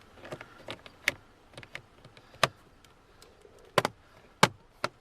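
A series of about ten sharp, irregularly spaced plastic clicks and taps from handling the switches and panel on a car's lower dashboard, the loudest a quick double click a little before four seconds in and a single click soon after.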